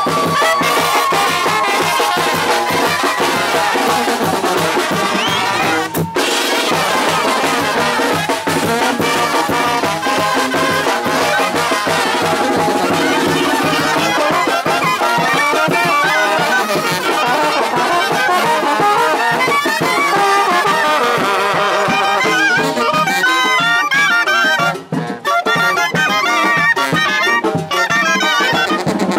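Oaxacan wind band playing live at close range: trombones and clarinets together, with quick clarinet runs coming forward near the end.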